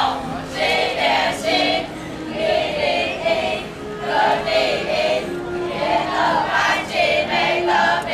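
A group of young children singing together in repeated short phrases over a music track playing held notes.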